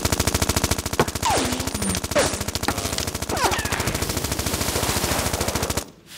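Cartoon sound effect: a rapid, evenly spaced rattle of sharp pops, well over ten a second, like machine-gun fire, with a few short falling squeals over it. It cuts off abruptly near the end.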